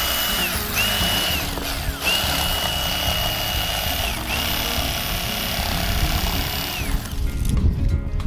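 Bubba Blade 110-volt corded electric fillet knife cutting a perch fillet: a high motor whine that runs in four bursts, sliding up in pitch as the trigger is pressed and down as it is let go, then stops about seven seconds in.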